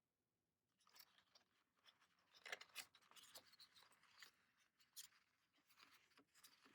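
Faint, irregular rustling and crinkling of paper and plastic as K-pop album contents are handled and sorted. It begins about a second in and is busiest near the middle.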